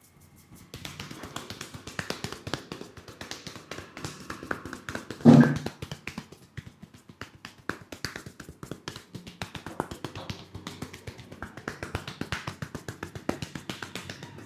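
Rapid, uneven hand tapping and slapping on the head during an Indian champi head massage, several strikes a second, with one much louder smack about five seconds in.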